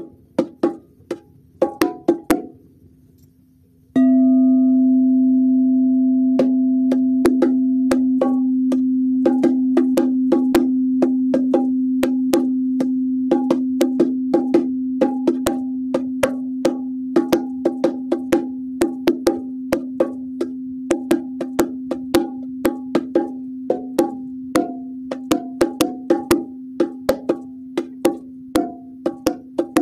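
Bongo drums played with quick, uneven hand strokes. About four seconds in, a sound bowl is struck and rings on in one long steady tone that slowly fades under the drumming.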